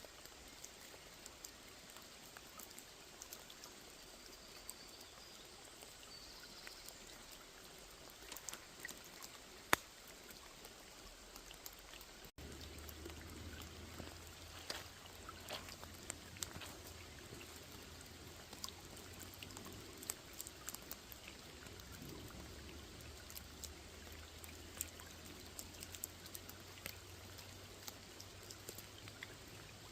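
Rain falling on a small pond: a faint, even hiss with many separate drops ticking, one sharper drop just before 10 seconds in. About 12 seconds in the sound cuts abruptly to another stretch of rain with a low steady hum underneath.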